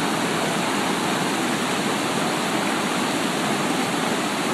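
River water rushing steadily, a loud even hiss without pauses.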